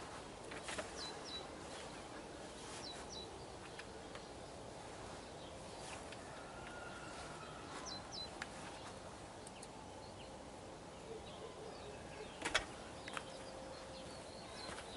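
Faint outdoor ambience with short bird chirps now and then, and a few clicks and knocks of gear being handled in an open car boot, the loudest knock a little before the end.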